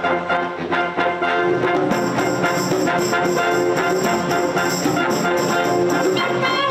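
Wind ensemble playing, with brass to the fore; the full band comes in fuller and brighter about two seconds in.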